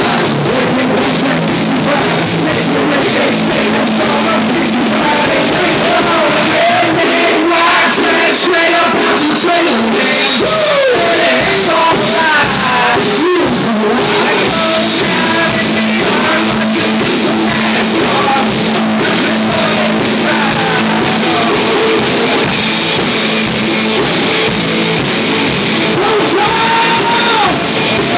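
Live country-rap performance: loud rock-style music with vocals sung and shouted into microphones.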